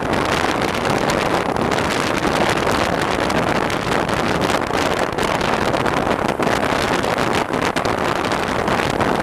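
Steady heavy wind rush and buffeting on the microphone of a camera mounted on a Cagiva Raptor 650 motorcycle riding fast, burying the engine's note.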